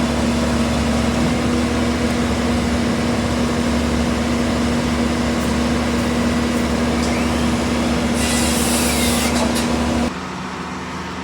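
Heavy diesel engine of a concrete truck running steadily and loudly, with a burst of hiss lasting about a second and a half near the end. The engine cuts off suddenly about ten seconds in.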